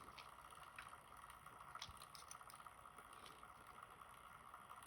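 Near silence, with a few faint light ticks of small metal tools working at a lock's snap ring.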